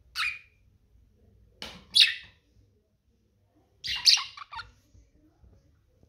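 Budgerigar giving a few short, loud chirps, the last a quick chattering run.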